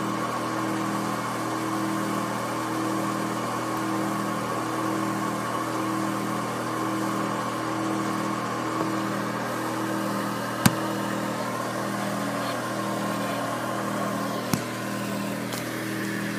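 An engine idling steadily, with a slow regular pulse in its hum. Two sharp clicks come about ten and fourteen and a half seconds in.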